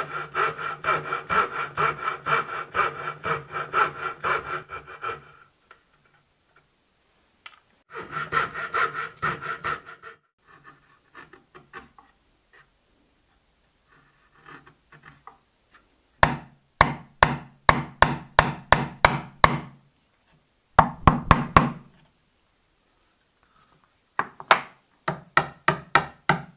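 Fine-bladed fret saw sawing out dovetail waste in hardwood with fast, even strokes, in two runs. Then a chisel pares quietly, and from about two-thirds of the way in comes a series of sharp wooden knocks, about three to four a second in three groups, as a chisel is struck to chop out waste between the dovetails.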